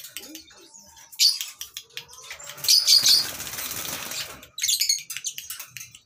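A flock of caged lovebirds chattering in rapid, shrill, high chirps, with a burst of wing flapping from about two to four and a half seconds in.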